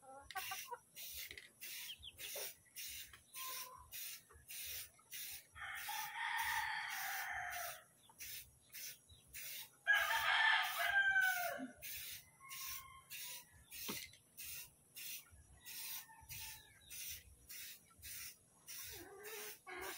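A rooster crowing twice, about five and ten seconds in, each crow about two seconds long and falling in pitch at the end. Under it, a steady rhythmic rasping pulse about twice a second.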